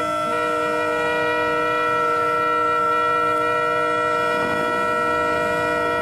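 Several boat horns sounding together in one long, steady chord of clashing tones. Another horn glides in briefly about four and a half seconds in.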